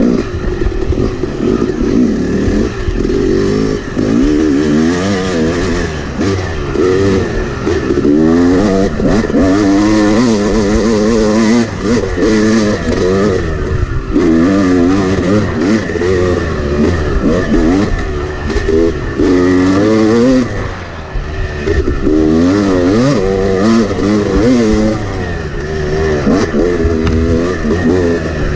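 Yamaha 250 two-stroke dirt bike engine revving hard as it is ridden fast, its pitch climbing and falling over and over as the rider works the throttle and gears. The throttle briefly drops off about twenty seconds in.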